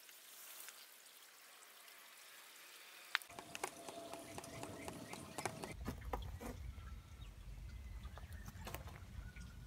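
Faint trickling of liquid draining from a compost tub's spigot and holes, with scattered drips and ticks from about three seconds in and a low rumble joining about halfway through.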